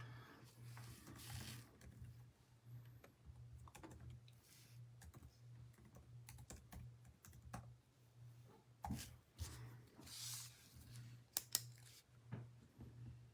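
Faint typing on a computer keyboard: irregular key clicks, with a couple of sharper clicks near the end, over a steady low hum.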